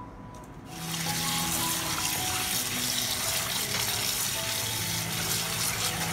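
Kitchen tap water running into a stainless steel bowl of French beans, splashing over them as they are washed and turned by hand; the water comes on about a second in and then runs steadily.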